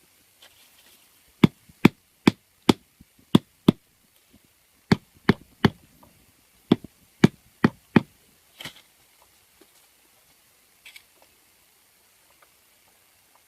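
About thirteen sharp knocks, struck roughly two to three a second in three groups with short pauses between, then two faint rustles.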